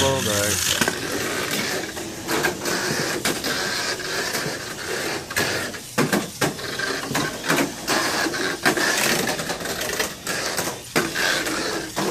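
Tamiya Mini 4WD car on a Super FM chassis running laps on a plastic Mini 4WD track: a steady rapid clatter with many irregular sharp clicks as it runs along the track sections.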